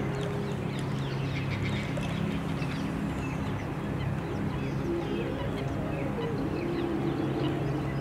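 Wetland birds calling: many short, overlapping calls and chatter scattered through, over steady low held tones.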